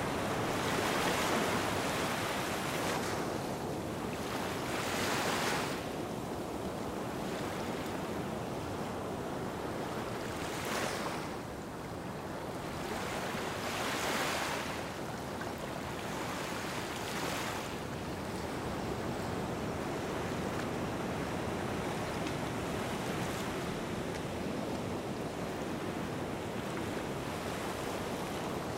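Small waves washing onto a sandy beach: a steady hiss that swells and fades with each wash, several times at uneven intervals.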